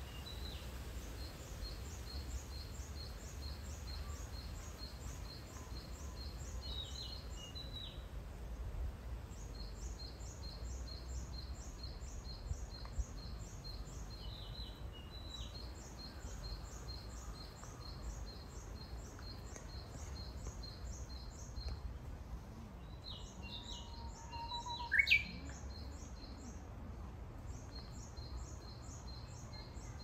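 Japanese bush warbler singing in woodland, its loudest phrase late on a held whistled note followed by a quick rising flourish, the classic 'hoo-hokekyo'. Long runs of rapid, high, repeated chirping from another bird go on and off, over a steady low background rumble.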